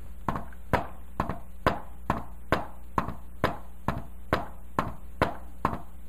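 Palm tapping on a whiteboard, a steady run of knocks about two a second with some louder than others, imitating the S4–S1–S2 rhythm of a fourth heart sound (atrial gallop).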